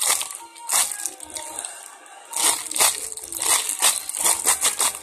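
Clear plastic bag crinkling in irregular bursts as the squishy toy sealed inside it is squeezed and turned in the hands.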